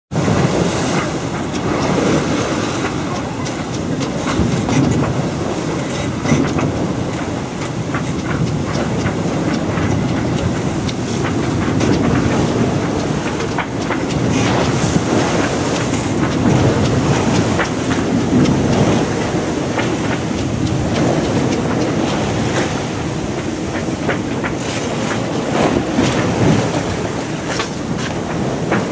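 Wind and water rushing past the hull of a heeled sailing yacht under way in a rough sea: a loud, steady roar that swells and eases, with frequent knocks and slaps.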